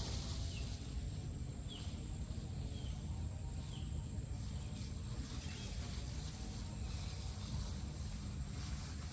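Outdoor background: a steady low rumble with a constant high insect drone and a few faint short chirps. The chainsaw is not running.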